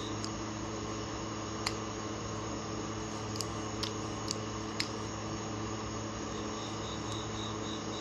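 Steady low electrical hum, with a few faint light clicks as the handle of a click-type torque wrench is turned to set its torque. A faint high chirp repeats about four times a second near the end.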